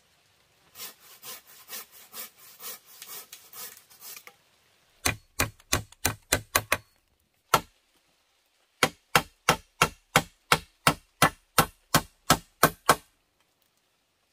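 Handsaw cutting through a wooden pole, about two strokes a second. A few seconds in it gives way to sharp wooden knocks, about three a second, in two runs with a single knock between them.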